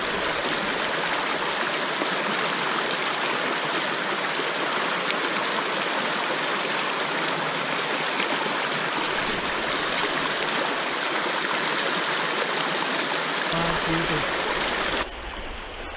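Shallow river current rushing over a rocky bed: a steady, even rush of water that drops off sharply near the end.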